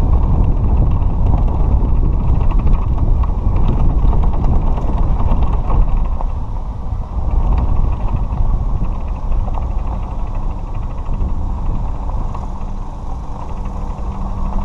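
Golf cart driving over a gravel road: a continuous rumble with rattling and creaking from the cart's body. A steady low hum comes in near the end.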